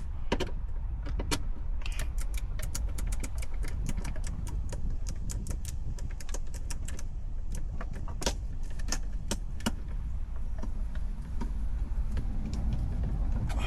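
Hand ratchet clicking in short irregular runs as a headliner bolt is loosened, with metal tool clatter over a steady low rumble.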